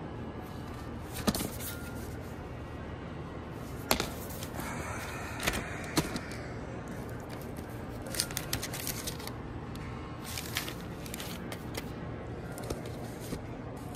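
Cardboard LP record sleeves slapping and knocking against each other as records are flipped through in a crate: a few sharp single slaps, then quicker runs of clicks. Faint background music plays under it.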